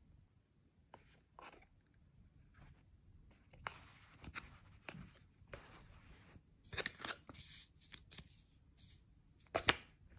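Cardboard gift box and cotton dust pouch being handled: scattered soft rustles, scrapes and light taps as the box is opened and the pouch lifted out and set down, the loudest tap near the end.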